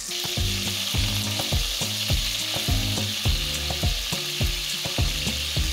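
Chicken pieces frying in lard in a hot soapstone pot, with a steady sizzle.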